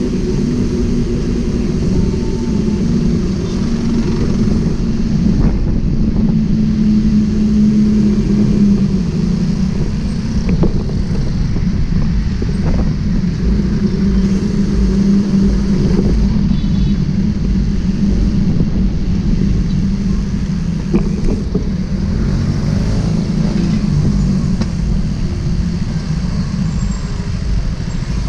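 Steady drone of congested road traffic: car, jeepney and motorcycle engines running close by as the traffic creeps along.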